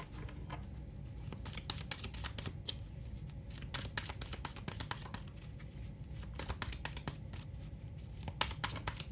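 A deck of oracle cards being shuffled by hand: a run of irregular soft clicks and flicks, over a low steady hum.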